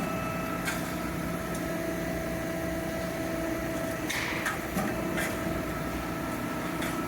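Steady hum of sheet-metal shop machinery with a constant whine, broken by a few light clicks and knocks.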